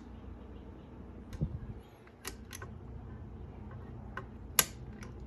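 Genie model 2055 belt-drive garage door opener running, a quiet steady motor hum with scattered light clicks and one sharper click a little over four and a half seconds in.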